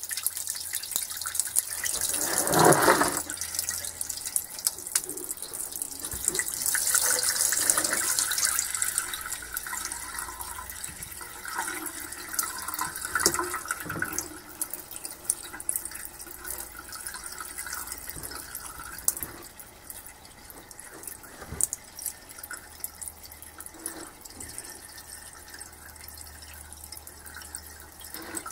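Rust-laden water poured from a plastic jug into a sink, a splashing stream that is heaviest in the first several seconds, then thins to a trickle and drips.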